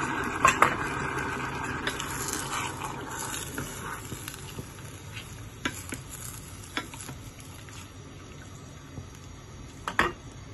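Water pouring into a stainless steel saucepan of chicken pieces trails off in the first couple of seconds, with two sharp clicks about half a second in. Then a wooden spoon stirs the pan, knocking against it a few times over a low steady hiss.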